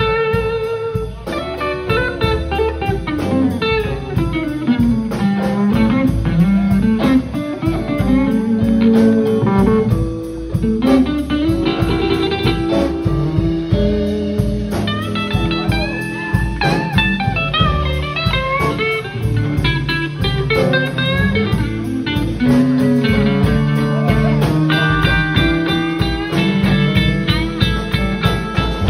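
Live blues band playing: several electric guitars over a drum kit's steady beat.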